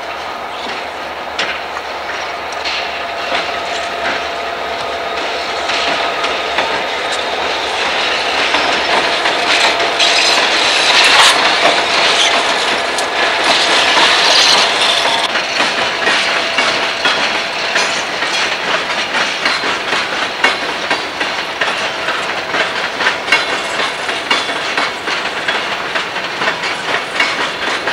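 Freight train rolling past: diesel locomotives, then a long string of hopper cars, their wheels clacking over the rail joints. The noise swells to its loudest near the middle, then settles into a steady run of rhythmic clicks as the cars go by.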